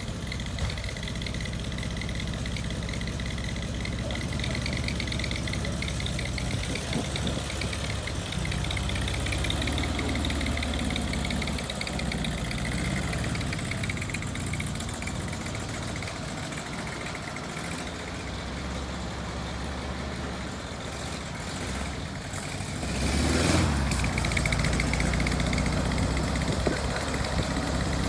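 A 1972 VW Super Beetle's air-cooled flat-four engine runs steadily at idle, getting louder about three-quarters of the way through.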